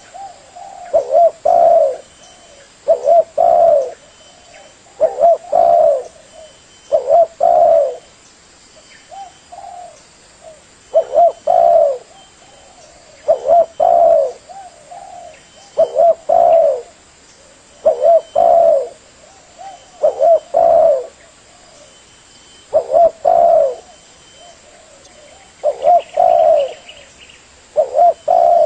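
Spotted dove (tekukur) cooing: a short phrase of a few low coo notes repeated about once every two seconds, with a softer lull about a third of the way through.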